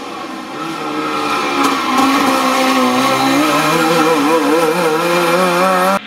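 Trabant 601 rally car's two-stroke twin-cylinder engine revving hard as the car passes, growing louder over the first two seconds, then its pitch wavering and climbing before the sound cuts off suddenly at the end.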